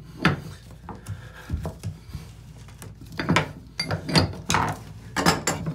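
Metal clicks and clunks of an open-ended wrench working a drain removal tool in a rusted-in bathtub drain flange, loosening it a little with each turn. One knock comes just after the start, then a quick run of several from about three seconds in.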